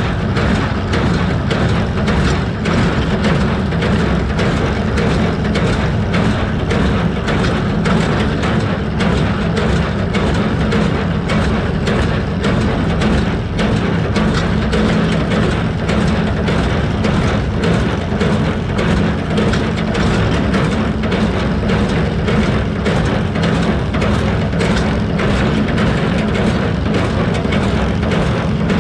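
Fahr HD 300 small square baler working in hay, its mechanism clattering steadily with a constant run of knocks, over the steady running of the Massey Ferguson 148 tractor pulling it.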